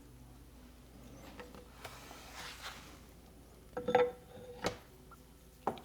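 Steel parts of a manual transmission clinking and knocking as they are handled, a few light metallic taps with a brief ring, the loudest about four seconds in and another near the end.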